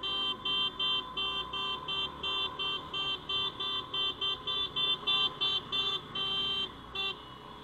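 Motorcycle horn sounded in a rapid string of short, evenly spaced beeps, about three a second, stopping near the end. It is protest honking in a noise barrage.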